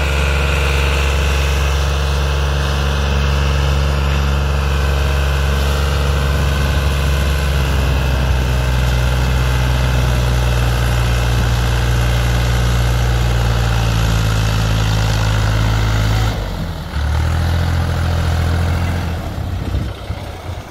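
New Holland Al-Ghazi 65 hp tractor's diesel engine running steadily under load as it hauls a heavily loaded sugarcane trolley. The engine note shifts briefly about three quarters of the way through.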